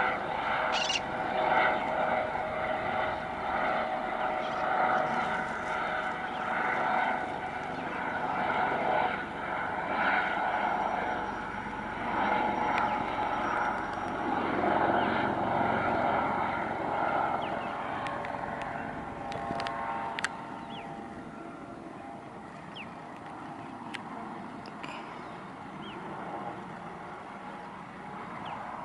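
Eurocopter AS565K2 Panther twin-turboshaft helicopter running, a steady turbine whine over the rush of engine and rotor. The sound drops noticeably about two-thirds of the way through, while the whine carries on.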